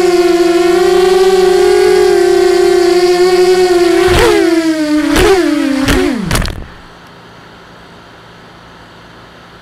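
Small FPV quadcopter's DYS 1806 2300KV brushless motors and propellers whining steadily. From about four seconds in there are a few knocks as it touches down, the whine sinks in pitch, and the motors spin down and stop at about six and a half seconds, leaving a faint hiss.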